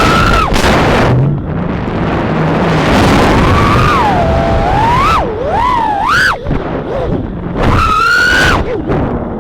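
A 3-inch FPV quadcopter's motors and propellers whining, the pitch rising and falling with the throttle over a rushing noise. The pitch sweeps up sharply about six seconds in and holds high near eight seconds.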